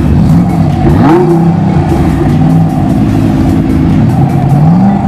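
Supercar engine revving, its pitch sweeping sharply up and back down about a second in, over music with a steady beat.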